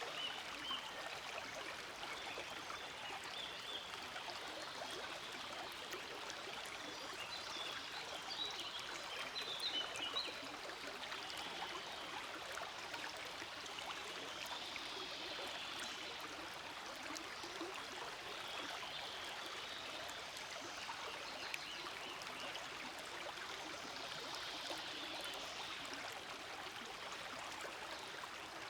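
Forest stream flowing steadily: a continuous rush of running water, with a few brighter splashy flecks in places.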